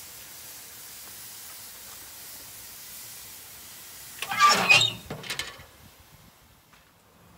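Marinated chicken sizzling on gas grill grates with a steady hiss. About four seconds in, the grill's steel lid is shut with a loud metal clatter and a smaller clank just after, and the sizzle goes muffled.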